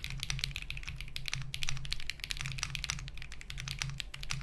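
Fast typing on a Monsgeek M1 mechanical keyboard: a dense, uneven run of keystroke clacks.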